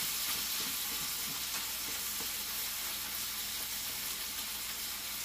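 Ground taco meat sizzling steadily as it browns in a skillet, with a utensil stirring it and making small irregular scrapes and taps against the pan.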